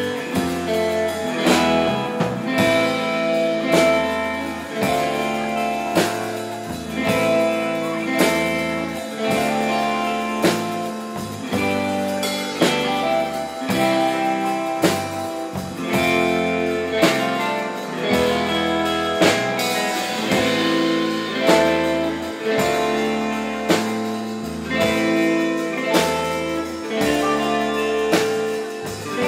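Live instrumental rautalanka: an electric guitar playing the melody over electric bass guitar and drums keeping a steady beat.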